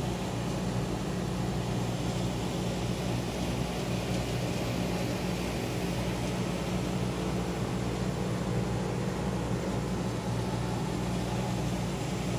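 Steady city background noise: a constant low hum under an even wash of distant traffic, with no distinct events.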